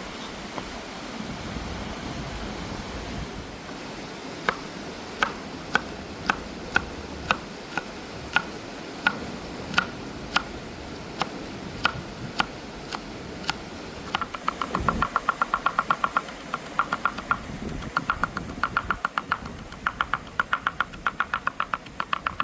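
Knife chopping on a wooden cutting board: single strokes about twice a second, then, about two-thirds of the way through, fast runs of mincing chops about ten a second, each stroke giving a short ringing knock. A steady rush of river water runs underneath.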